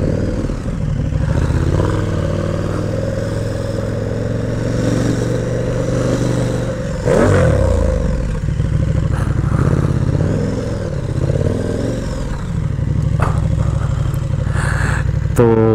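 KTM 1290 Super Duke R's V-twin engine running at low road speed, with a brief rev about seven seconds in as the bike picks up speed, then easing off as it slows.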